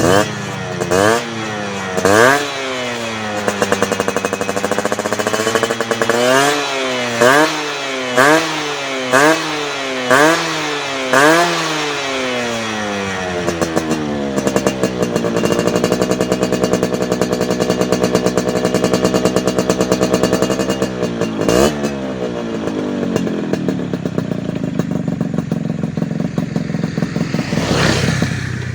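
Yamaha F1ZR two-stroke motorcycle engine breathing through an HTX aftermarket racing exhaust, its throttle blipped in short sharp revs, a quick run of them about one a second, settling to a steady idle between, with one more blip and a longer rev near the end.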